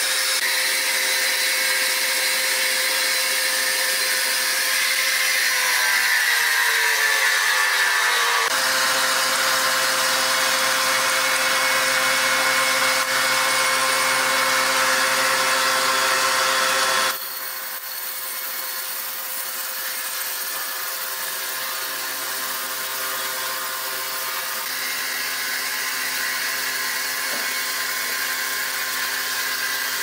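Horizontal band sawmill running, its steel band blade cutting lengthwise through a large hardwood beam: a steady hissing saw noise over a machine hum. The sound changes abruptly twice, and a tone slides down in pitch shortly before the first change.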